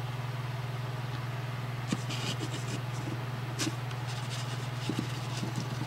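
Steady low hum, with a few faint clicks and taps as a small Lionel postwar coupler assembly and an aluminum block are handled.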